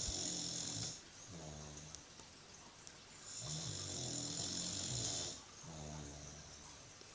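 British bulldog snoring in a slow, steady rhythm, one breath roughly every four to five seconds. Each loud, hissy snore lasting about two seconds alternates with a shorter, softer one.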